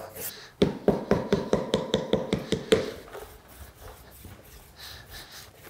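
Quick run of taps on a saddle's freshly built leather ground seat, about five a second, loud for the first couple of seconds and then fainter. The tapping checks by ear that the glued layers are all stuck down.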